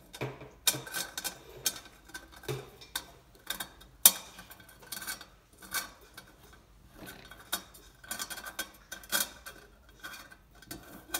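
Irregular metallic clicks and clinks of steel bolts against a perforated stainless-steel cutlery holder as bolts are pushed through its holes and screwed in, the loudest about four seconds in.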